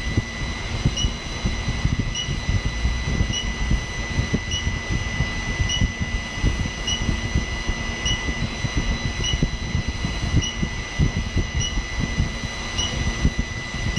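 Steady mechanical whir with a constant high whine and a faint blip repeating about once a second, from heating equipment with upper and lower heaters running while silver solder is held at temperature.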